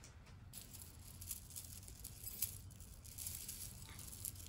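Faint, scattered light clicks and rustling of costume jewelry being handled and set down, over a faint low room hum.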